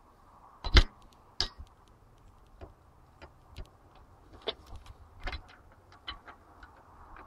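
Sharp, irregular metal clicks and taps from a socket and torque wrench tightening a spark plug, with one loud click about a second in and lighter ticks after.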